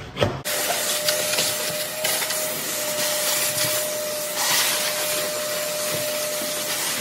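Steady running of an electric machine: an even hiss with one held whine, starting abruptly about half a second in.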